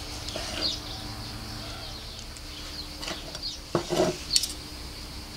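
Carving knife slicing grilled flank steak on a wooden cutting board, with one sharp knock on the board about two-thirds through. Birds chirp faintly in the background.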